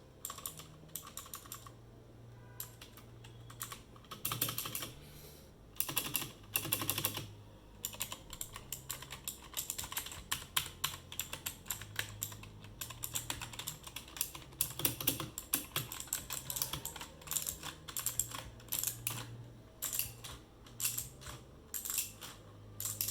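Rapoo V500 Pro mechanical keyboard being typed on: a steady stream of key clicks at an uneven pace, with several quicker flurries of presses.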